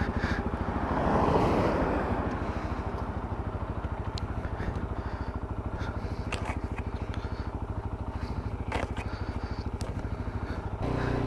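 Motorcycle engine running through its stock exhaust, a steady, rapid, even pulsing, with a louder swell of noise about a second in.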